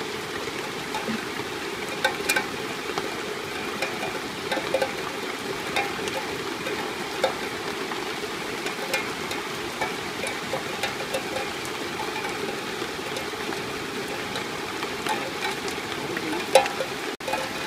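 Steady rain falling on leaves and wet ground, a constant patter with scattered sharper drips.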